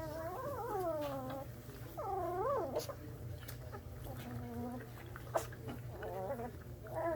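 English Mastiff puppies whining and crying in high, wavering calls: a long cry at the start, another around two seconds in, then fainter whimpers. A single sharp click comes about five seconds in.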